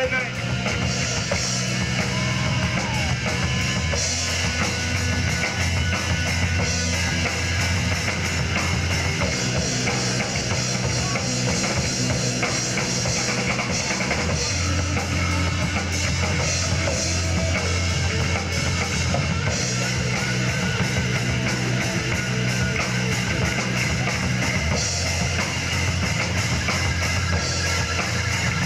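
Live rock band playing: drum kit and electric guitars, loud and continuous.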